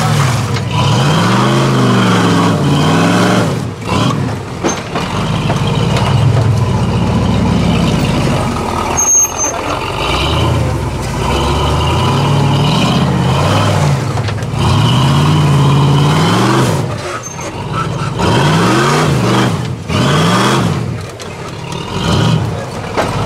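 Engines of custom 4x4 trial vehicles revving up and down again and again as they climb rocky and steep terrain, with a few abrupt breaks in the sound.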